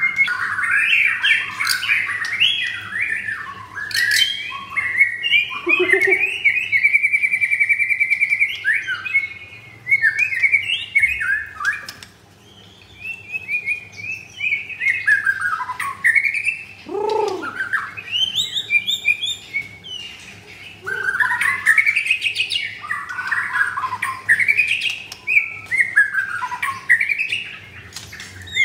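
White-rumped shama (murai batu) singing a long, varied song of quick whistled phrases and trills, with a held trill about seven seconds in and a few deep sliding notes.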